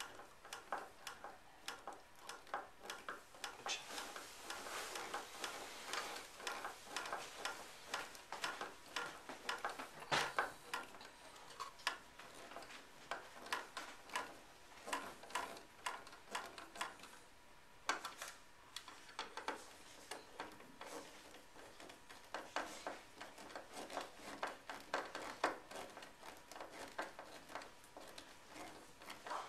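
Hand screwdriver turning an outlet's mounting screws into a plastic electrical box: a run of small, irregular metal clicks and scrapes, with one louder click about a third of the way through.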